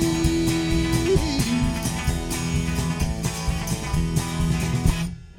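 Live country band of electric guitars, bass and drum kit playing the closing instrumental bars of a song, with a long held note over the band for about the first second. The music cuts off abruptly near the end.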